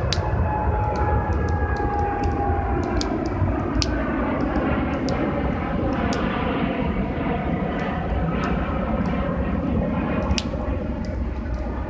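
Jet airliner passing low overhead: a steady rumble with a slowly shifting whine. Over it come the sharp, irregular pops of a wood campfire crackling.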